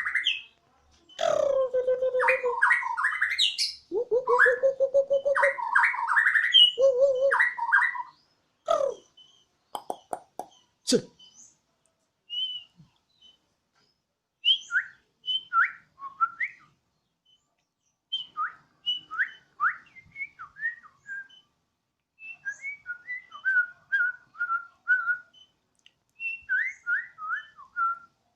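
Bornean shama (murai batu Borneo) singing a siren-like song. It is loud, with held and sliding whistled phrases for the first eight seconds, a few sharp clicks and a falling note around ten seconds in, then quicker, softer chirping phrases broken by pauses.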